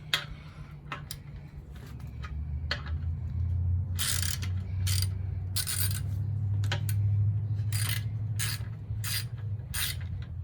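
Socket wrench turning a bolt out of a dirt bike's fender mount: short metallic rasping clicks repeating about once a second from a few seconds in, over a low rumble.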